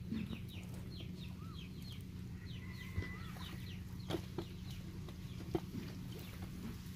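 Birds calling, a quick run of short falling chirps repeated through the background. Several sharp splashes and squelches come as gloved hands grope through shallow muddy water.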